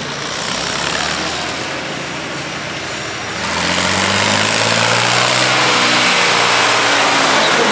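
Farm tractor's diesel engine running hard under full load as it pulls the weight sled down the track, getting clearly louder about three and a half seconds in as it comes close.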